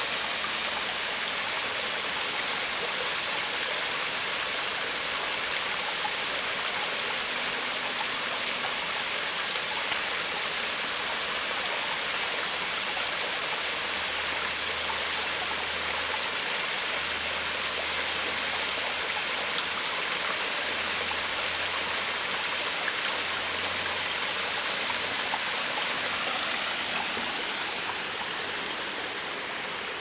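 Small forest stream running over rocks, with water falling down a rock face in a small cascade: a steady rushing and splashing that eases off a little near the end.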